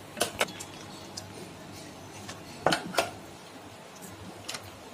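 Metal spoon clinking and scraping against a stainless-steel bowl while scooping soft dough: a few sharp clinks, the loudest two about three seconds in.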